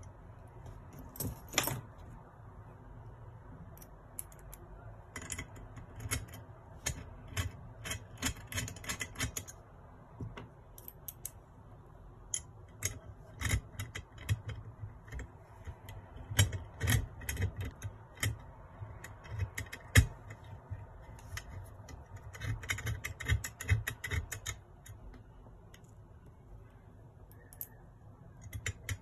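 Small metal parts of a Stirling engine model kit clicking and clinking as they are handled and fitted to the engine body, with an Allen key tapping against the metal. The clicks come irregularly, in busy clusters, with one sharper click about twenty seconds in.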